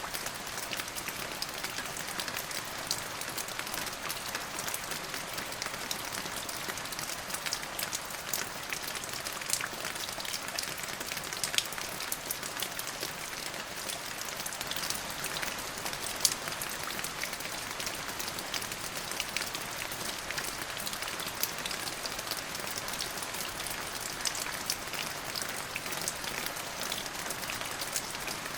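Steady rain falling, with many sharp individual drop hits ticking over an even hiss.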